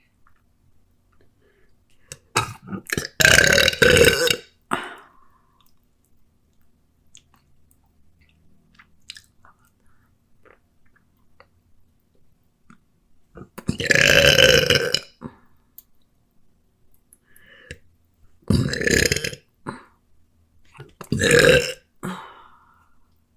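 A woman burping loudly four times: a long burp a few seconds in, another long one about midway, and two shorter ones near the end, with faint chewing sounds between.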